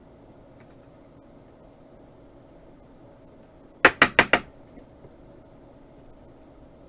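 Four sharp knocks in quick succession, a little under a second in all, against quiet room tone.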